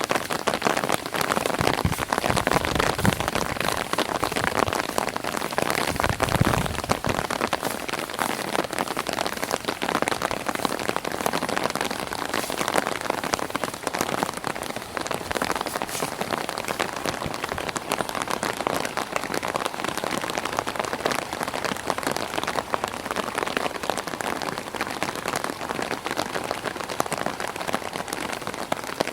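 Light rain falling on an umbrella held overhead: a steady, dense spatter of small drop hits.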